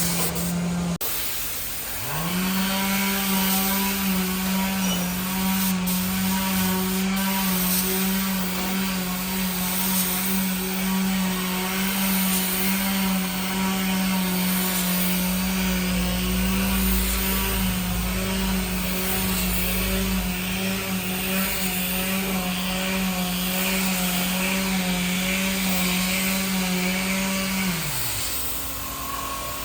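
Woodworking power tool motor spinning up about two seconds in, running at a steady speed with a steady hum, and winding down near the end. A deeper rumble joins for a few seconds midway.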